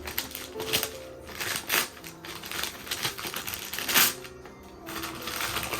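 Gift packaging being handled and opened: crinkling, rustling paper or plastic with quick crackles, the sharpest about four seconds in. Soft background music with held tones underneath.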